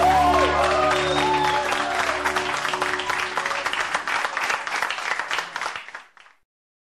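A live ballad recording ending: held instrumental chords under audience applause, fading out about six seconds in.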